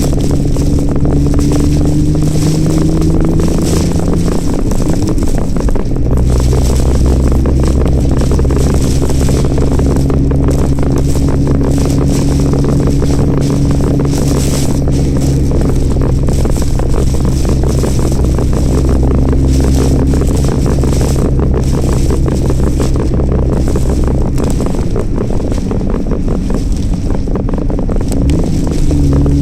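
Toyota Chaser's engine running steadily while driving, under a continuous hiss of wind, rain and wet-road noise. The engine note shifts a few seconds in, drops away near the end, then picks up again.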